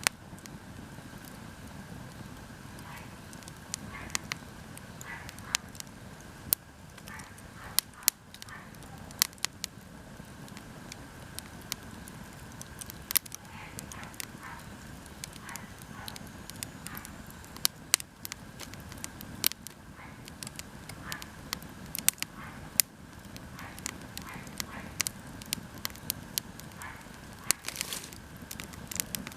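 Wood fire of split firewood crackling, with sharp irregular pops over a steady low rush.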